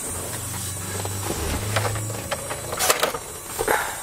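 A low steady hum that stops about two seconds in, then a few sharp clicks and knocks as the glovebox of a 1981 Peugeot 604 is unlatched and swung open.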